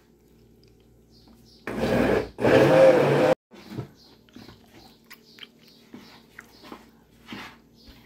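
Mondial electric blender running in two short bursts, about a second and a half in all, churning a thick jatobá cake batter, then cutting off suddenly. Light knocks and scrapes follow as the jar is handled.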